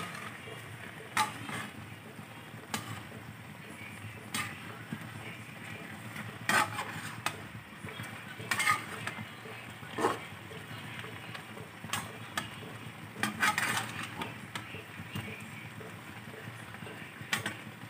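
A slotted spatula stirring chicken adobo in a pan, knocking and scraping against the pan at irregular moments, over the steady bubbling of the simmering soy-sauce liquid.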